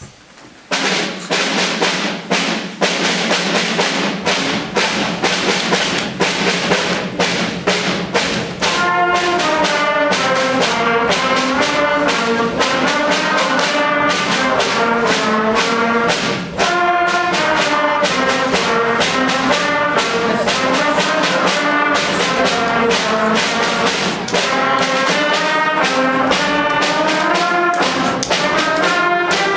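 Instrumental band music led by brass, with drum strokes and a steady held low note underneath, starting suddenly under a second in. A melody line comes in around nine seconds.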